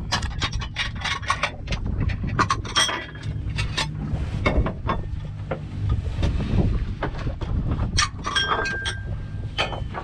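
Spoons and small bowls clinking, and a spoon scraping rice from a metal pot as a meal is served out: many short, sharp clinks in quick succession. The boat's engine runs with a low, steady hum underneath.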